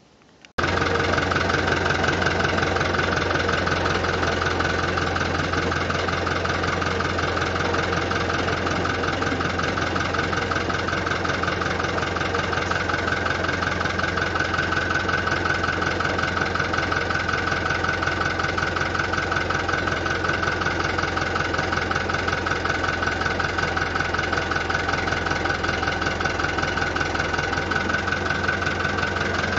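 Fiat 640 tractor's diesel engine idling steadily, coming in abruptly just after the start.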